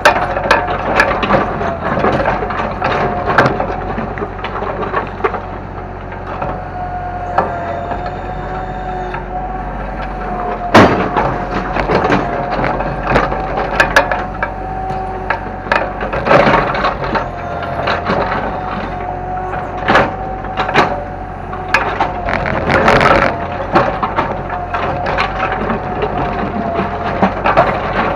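Kobelco excavator running steadily with a constant whine while it breaks up a house, with repeated cracks, crunches and crashes of splintering wood and debris; the sharpest crack comes about eleven seconds in.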